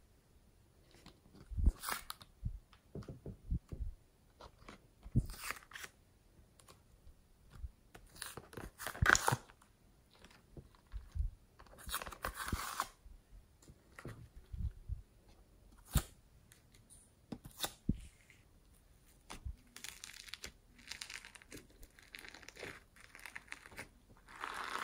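Foam clay being peeled and torn out of a plastic tray and set onto slime: irregular bursts of tearing and rustling, with a few sharp knocks of the plastic tray.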